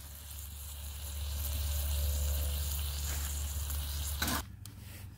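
Raw ground beef sizzling in a steel mess tin on the cooktop of a wood-burning tent stove, a steady hiss over a low rumble. It cuts off suddenly about four and a half seconds in.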